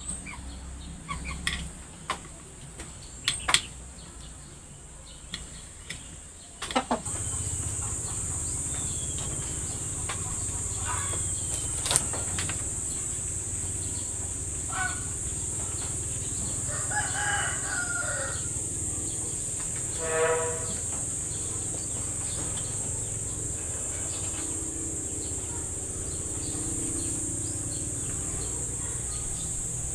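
Chickens: a rooster crowing once about halfway through and a short clucking call a few seconds later. Under them runs a steady high insect drone, like crickets, that begins abruptly about seven seconds in. Before that there are only scattered light knocks and clicks.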